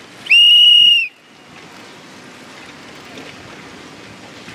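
A whistle blown once: a single loud blast a little under a second long on a steady high pitch, with a quick rise at the start. Steady wind and water noise follows.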